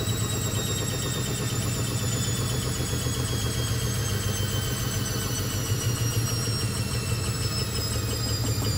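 Hoover VisionTech VTS715D21X washing machine running, a steady low hum under a thin motor whine that slowly falls in pitch.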